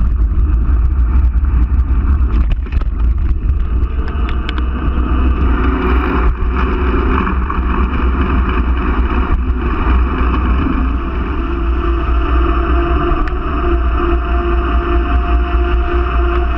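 Wind rushing over the microphone and a mountain bike's knobby tyres rolling at speed: rattling clicks on a gravel path for the first several seconds, then a steady tyre hum on asphalt.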